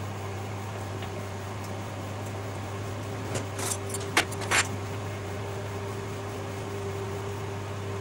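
Samsung MS23K3515AW 800 W microwave oven running with a steady hum. Partway through, the lentil soup heating inside pops several times in quick succession.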